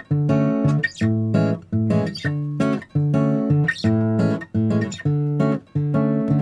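Background music: strummed guitar chords in a steady rhythm.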